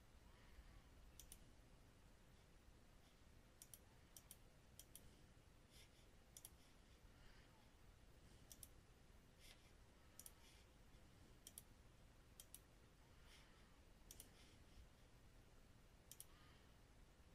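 Faint computer mouse button clicks, a dozen or more at irregular intervals, some in quick pairs, over faint room hiss.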